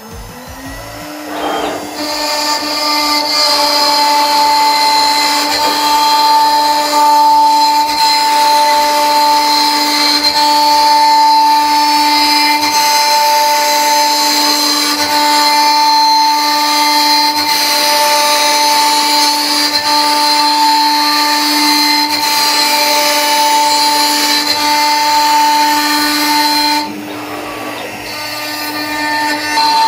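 CNC router spindle with a three-flute serrated upcut roughing bit spinning up, then cutting a pocket in sheet wood: a steady high-pitched whine over a hiss of cutting for about 25 seconds. Near the end the cut finishes and the sound drops to the spindle running free.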